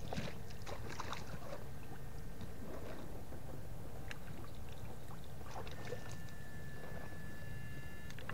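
Water splashing and sloshing as people wade and work in shallow water, over a steady low rumble. A thin steady tone sounds for about two seconds near the end.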